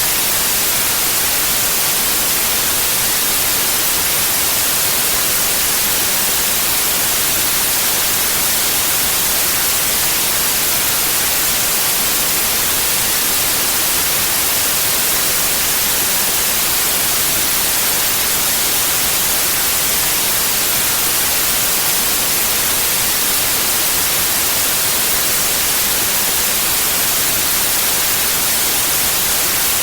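Steady white noise: an even, unchanging hiss with most of its energy in the high end.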